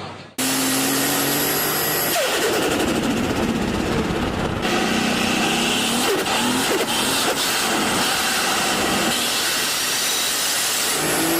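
Turbocharged car engines revving and dropping off throttle, with the rapid fluttering chatter of turbo compressor surge as the revs fall. Several short clips are joined with abrupt cuts about half a second, two seconds and nearly five seconds in.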